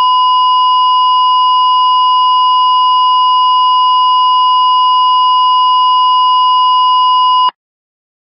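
Television colour-bar test tone: a loud, steady single-pitch beep that holds without change and cuts off suddenly about seven and a half seconds in.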